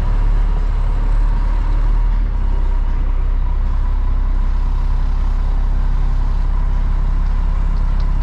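Concrete mixer truck running steadily while its drum turns to discharge, the low engine drone mixed with a noisy rattle of rocks tumbling inside the drum, the sign that the drum is nearly empty, under 2 yards left. The engine note eases slightly about two seconds in.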